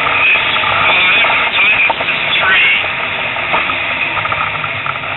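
Rally car's engine and road noise heard from inside the cabin, a loud, steady din with the engine's drone underneath.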